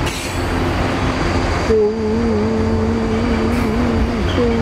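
Freight train of autorack cars rolling past close by: a steady rumble. From about two seconds in, a steady droning tone that wavers slightly in pitch joins it and breaks off briefly near the end.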